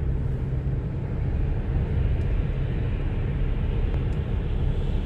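Steady road and engine noise from a car being driven, heard from inside the cabin.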